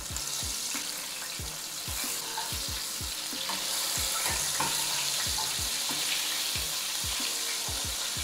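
Cornmeal-breaded crappie fillets sizzling hard in hot frying oil as they are turned over mid-cook. The sizzle swells about four seconds in, with low falling thumps underneath.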